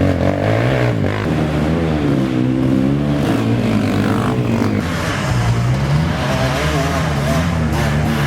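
Several racing ATV engines revving at once, their pitches rising and falling as the riders accelerate and back off.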